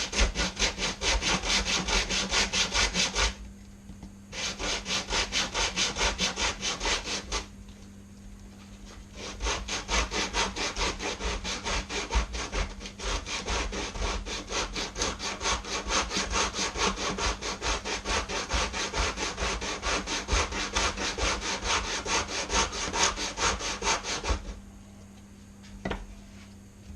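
Sanding block rubbed hard back and forth across a wooden notch in quick, even strokes, deepening the cut. It works in three spells, with short pauses about three and seven seconds in, and stops a couple of seconds before the end.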